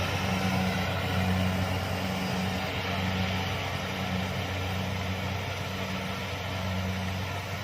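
Kubota DC-70 combine harvester running steadily: a low diesel engine hum that throbs about once a second, over the even noise of its cutting and threshing machinery.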